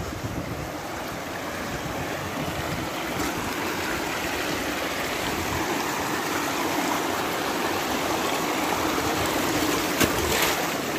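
Shallow mountain stream rushing and splashing over rocks, swelling gradually louder, with a couple of brief knocks near the end.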